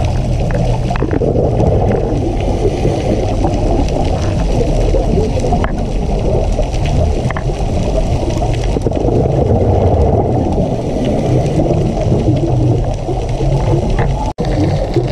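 Muffled underwater noise, a steady low rumble and wash picked up by a camera underwater, with faint scattered clicks above it. The sound cuts out for an instant near the end.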